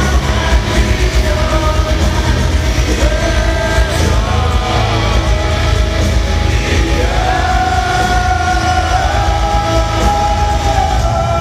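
Metalcore band playing live through a large PA: heavy guitars, bass and drums under a sung vocal line of long held notes that bend in pitch, heard from among the crowd with a heavy low end.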